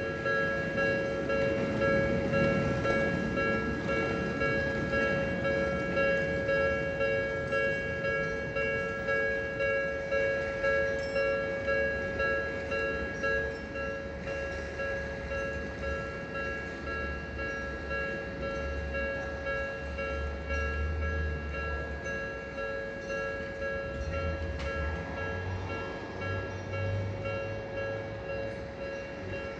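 Japanese railway level-crossing warning bell ringing its repeated two-tone "kan-kan" ding without a break. In the second half a train rumbles low through the crossing under the bell.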